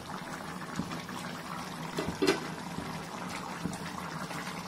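Chicken curry bubbling on the boil in an open pot, a steady wet simmer dotted with small pops, with one short louder sound about two seconds in.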